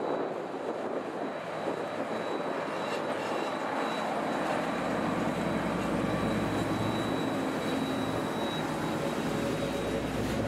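Soviet-built M62 'Gagarin' diesel locomotive's two-stroke V12 diesel running under load as it hauls a freight train past, the deep engine sound strongest about halfway through as the locomotive goes by. Near the end the freight wagons roll past behind it.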